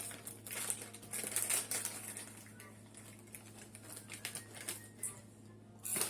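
Crackling and rustling of snack bags and popcorn being handled: quick irregular crackles, busiest in the first two seconds and again near the end, over a low steady hum.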